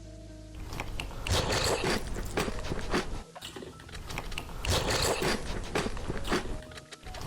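Crunchy food being bitten and chewed, crunching in bouts with short pauses between them.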